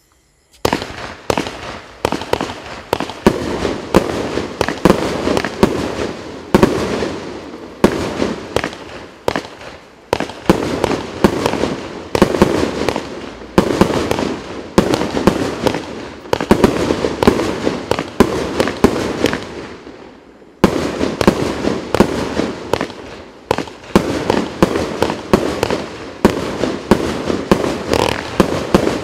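Evolution Fireworks 'Mayhem' fireworks cake firing in rapid succession: sharp bangs several to the second over a continuous crackle of bursting stars. It starts about half a second in and has a brief lull about two-thirds through.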